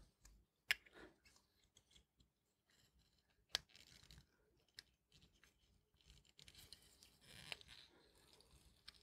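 Near silence broken by a few faint, sharp clicks of small metal watchmaker's tools on watch parts, with light rustling handling noise towards the end.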